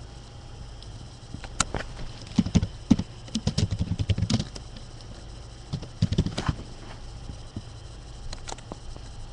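Computer keyboard and mouse being used: a quick run of clicks and taps lasting about three seconds, a shorter run about six seconds in, and a few faint clicks near the end, over a low steady hum.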